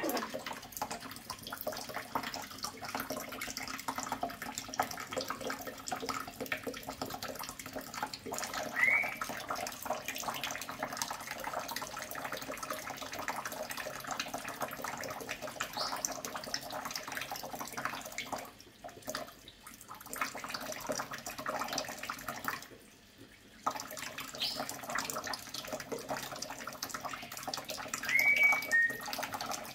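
Kitchen tap running in a thin stream, splashing into the sink and over a cockatoo bathing under it. The splashing briefly dips twice, and a few short high chirps break through.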